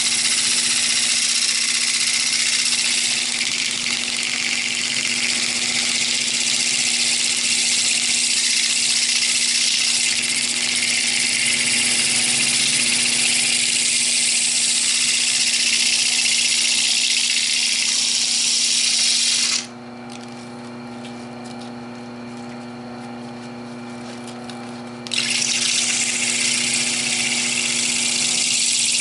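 Lathe running with a turning tool cutting into the spinning epoxy-resin and cassette-tape bowl: a loud, steady hiss of the cut over the lathe motor's steady hum. About two-thirds of the way through the tool comes off for some five seconds, leaving only the hum, then the cutting resumes.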